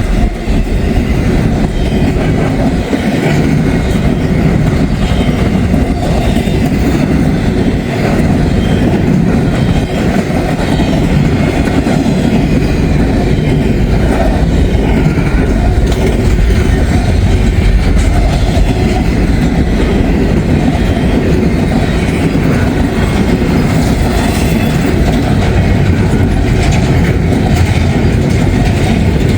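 Long container freight train rolling steadily past close by, a loud continuous rumble of wheels on rail.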